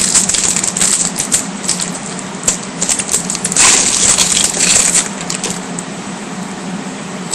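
Foil trading-card pack wrapper crinkling and being torn open. Sharp crackles come in the first couple of seconds, then a denser crackling burst about halfway through.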